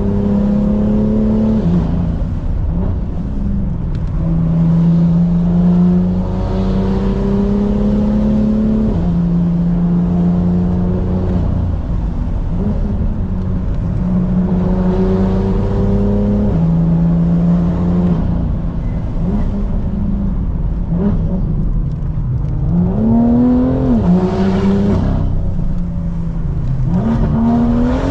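Tuned BMW M2's turbocharged straight-six engine heard while driving hard. It holds steady under load and changes pitch in steps every few seconds with the gear changes, and near the end it gives two quick revs that rise and fall.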